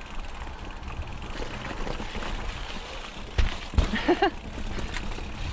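Mountain bike riding down a rough dirt trail: a steady rumble of tyres on the ground, with two heavy thumps about three and a half seconds in as the bike drops down steps, and a brief pitched sound right after.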